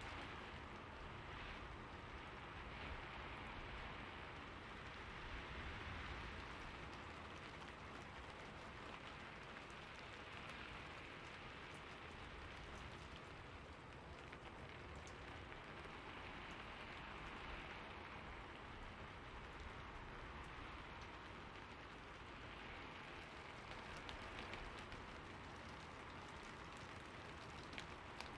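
Steady rainfall, an even hiss of rain hitting surfaces with scattered individual drop ticks and gentle swells in intensity.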